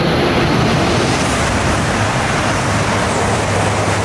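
Tohoku Shinkansen bullet train passing through the station at about 320 km/h: a loud, steady rushing of air and wheels on rail, with a low hum underneath.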